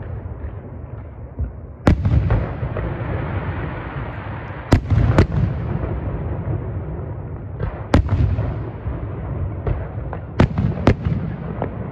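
Aerial firework shells bursting in a display: a series of sharp bangs, about six loud ones with a few weaker in between, over a continuous low rumble.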